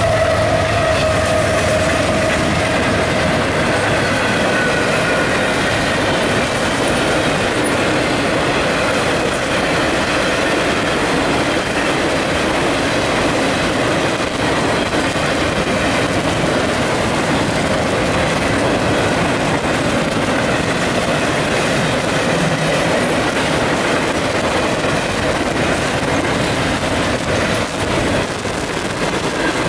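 Freight train rolling past. In the first few seconds the trailing GE ES44AH diesel locomotive goes by, with a low engine hum and a tone that falls in pitch. Then double-stack intermodal cars and refrigerated boxcars roll by with a steady, loud noise of wheels on rail.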